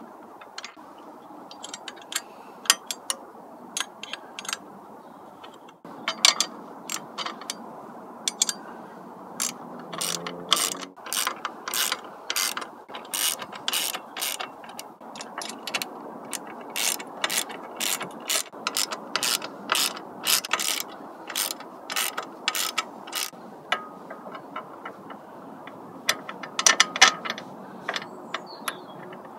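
Hand socket ratchet clicking in quick runs of strokes as bolts are tightened, with a few louder knocks among the clicks.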